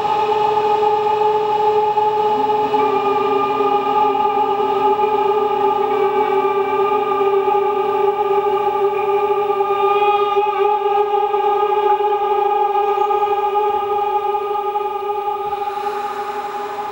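Trumpet playing long, steady held notes layered into a drone of several pitches at once. A lower note joins about two seconds in and drops out around eight seconds, and the sound starts to fade near the end.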